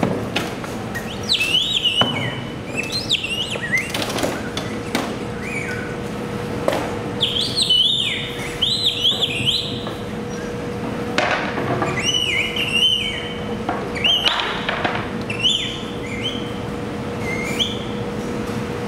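Repeated bird-like chirping whistles that slide up and down in pitch, over knocks and scraping as a large box is tipped off a hand truck and moved across the floor.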